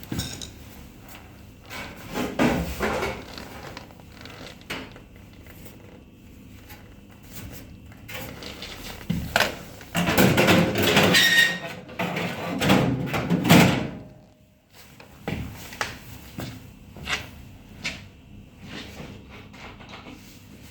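Scraping, rattling and knocking of objects being handled. The noise is loudest in a long stretch about halfway through, and a few separate sharp knocks follow near the end.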